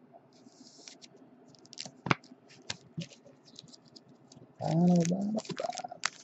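Light plastic clicks and scrapes of a trading card and a rigid plastic top loader being handled. A short voiced sound with a rising pitch comes about five seconds in.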